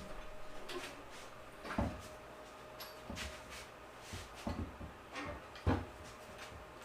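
Scattered knocks and clunks of hand work, about six in all, the loudest about two seconds in and near six seconds, over a faint steady hum.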